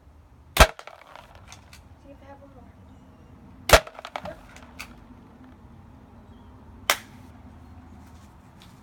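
BB pistol firing three sharp shots about three seconds apart, with lighter clicks between them.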